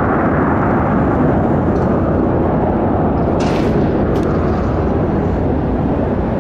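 McDonnell Douglas MD-81's two Pratt & Whitney JT8D-217 turbofans at climb power after takeoff: a steady, dense, low jet rumble. A brief hiss and a click come about three and a half to four seconds in.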